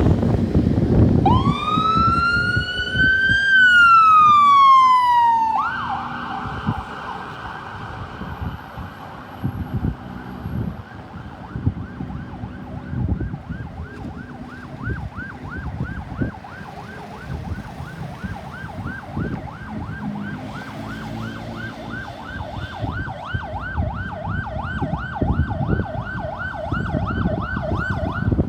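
Ambulance electronic siren: one slow wail rising and then falling, which switches about five seconds in to a fast, repeating yelp that carries on steadily.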